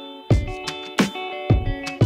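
Background music: guitar over a steady drum beat of about two beats a second.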